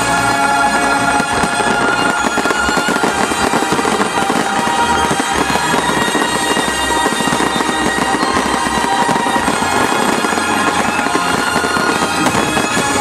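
Fireworks display: aerial shells bursting with thick, continuous crackling, with music playing throughout alongside.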